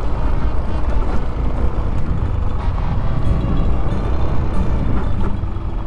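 A Yamaha Aerox 155 scooter's single-cylinder engine running steadily while riding, under a heavy low rumble of wind on the microphone.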